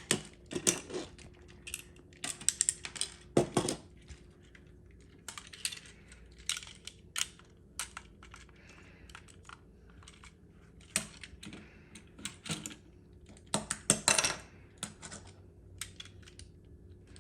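Hard plastic parts of a take-apart Transformer toy being handled and fitted together: irregular sharp clicks and clatter.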